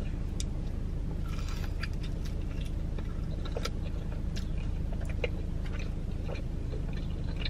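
Close-up chewing of a small cheesy pizza puff, with scattered small wet mouth clicks and crackles, over a steady low car-cabin rumble.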